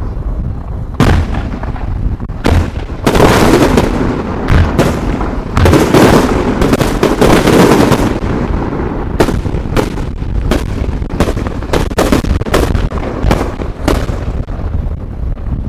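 Fireworks going off in rapid succession: many sharp bangs and booms over a steady low rumble, packed into dense volleys about three seconds in and again around six to eight seconds.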